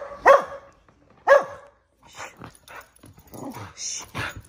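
A dog barking in play: two sharp, short barks about a second apart, each dropping in pitch, followed by softer, shorter scuffling sounds.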